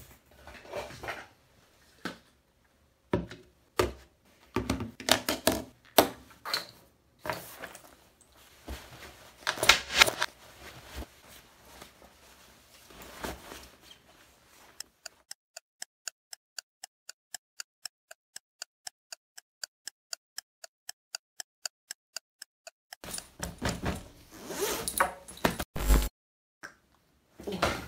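Clothes rustling and a zipper as a backpack is packed by hand, then a clock ticking evenly, about four ticks a second, for some eight seconds, then more rustling and a thump near the end.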